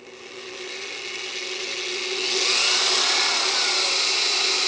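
Corded electric drill running and boring into a sheet-metal lid. The motor's steady hum builds over the first couple of seconds, and a louder, high-pitched cutting noise from the bit in the metal joins about two and a half seconds in.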